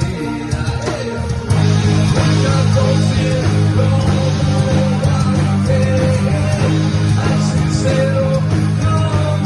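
Rock band playing a song, with guitars and a melody line over sustained chords; the full band comes in louder about a second and a half in.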